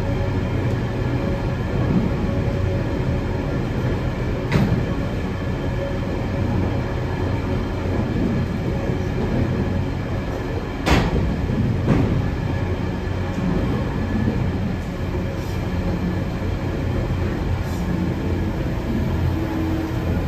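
Empty grain hopper wagons rolling past close by: a steady rumble of wheels on the rails. A sharp knock comes about four seconds in and two more about halfway through.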